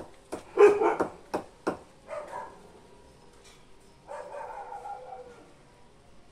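A dog barking in several bouts, with a few sharp knocks among the barks during the first two seconds.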